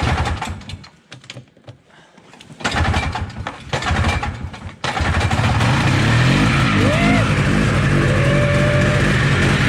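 Yamaha Bravo snowmobile's two-stroke engine being pull-started: it sputters in two rough bursts, then catches about five seconds in and settles into a steady idle.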